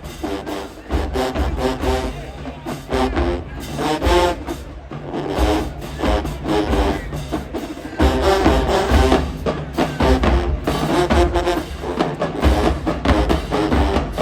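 College marching band playing in the stands: brass carrying a melody over pounding bass drums.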